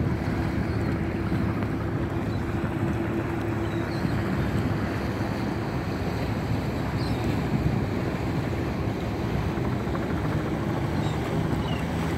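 Boat engines droning steadily under wind rumble on the microphone, with a steady hum that fades out a few seconds in.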